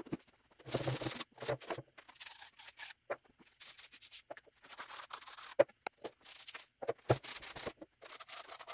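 Sandpaper scuffing plastic PVC and ABS pipe in several short, scratchy passes, with light clicks and knocks from the pipes being handled between them.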